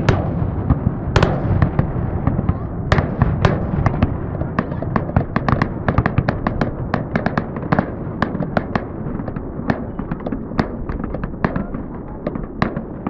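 Fireworks display: an irregular string of sharp bangs and crackling shell bursts over a steady low rumble. A few bigger bangs stand out in the first seconds, then the cracks come several a second.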